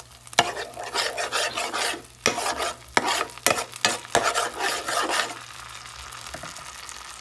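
Garlic butter being scraped out of its container into a hot pan: irregular scraping strokes mixed with sizzling for about five seconds, then a steady low sizzle.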